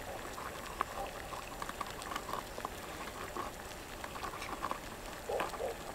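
Water bubbling in a small camp pot on a stove: a faint, irregular patter of small pops and ticks.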